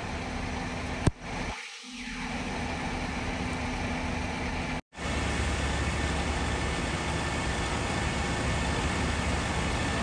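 Steady low rumble and hiss of idling fire trucks and street traffic in the rain. There is one sharp click about a second in, and a brief drop to silence near the middle where the recording cuts.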